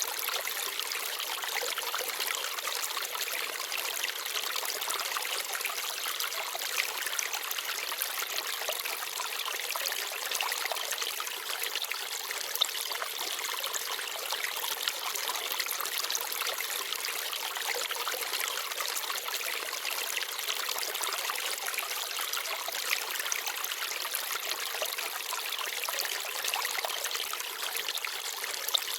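Forest stream babbling steadily, with a few brief louder splashes.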